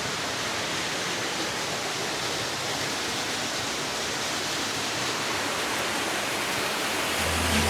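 Steady rushing of a waterfall. Music with a deep bass comes in just before the end.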